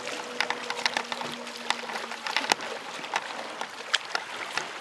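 Small waves lapping and slapping against the hull of a boat, in irregular sharp splashes over a steady watery noise. A faint steady hum underneath fades out about two seconds in.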